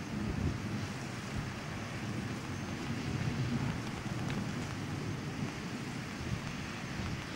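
Steady rain and storm wind during a thunderstorm, with the wind rumbling and buffeting on the camcorder microphone under a constant hiss.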